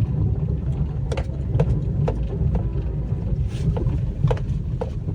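A car running with a steady low rumble, partly wind buffeting the microphone, with scattered light clicks.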